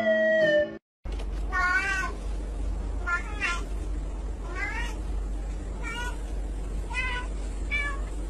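Domestic cat meowing six times, short calls about a second apart, over a steady low hum.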